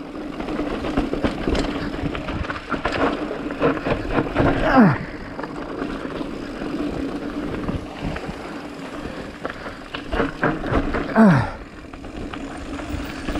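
Mountain bike riding down a dirt trail: tyres running over the ground with a steady hum, rattling and clicking over bumps, and wind on the microphone. Twice, about five seconds in and again about two seconds before the end, a short loud sound falls steeply in pitch.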